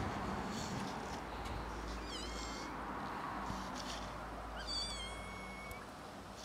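Kitten meowing twice in high, thin calls: a short one about two seconds in and a longer, level one near five seconds.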